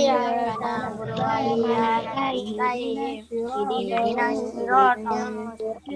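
Several children's voices chanting an Arabic prayer together in a sing-song unison, not quite in step with one another, heard through video-call audio.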